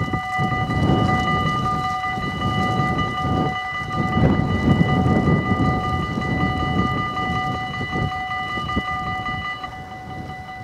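Dutch level-crossing warning bells ringing steadily as the barriers lower for an approaching train; part of the ringing stops near the end, about when the barriers are down. A loud, uneven low rumble lies beneath the ringing.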